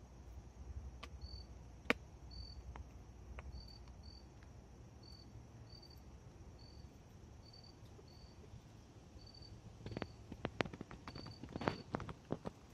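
A short, high chirp repeated over and over, about one every half second to a second, from a small animal: a chipmunk's chip call or a cricket. Sharp clicks and knocks sound over it, one loud click near two seconds in and a quick run of them in the last few seconds.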